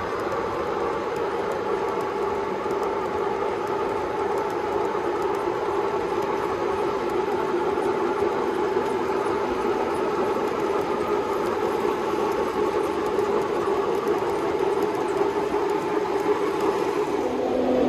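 Three-rail model train running on its track, a steady hum of motor and rolling wheels.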